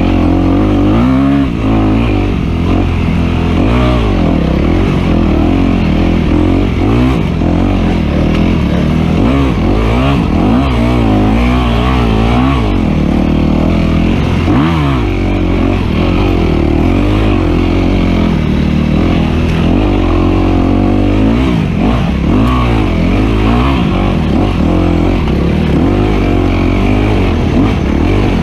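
Dirt bike engine, heard close up from on board, revving up and down continuously as the throttle is worked over rough off-road terrain.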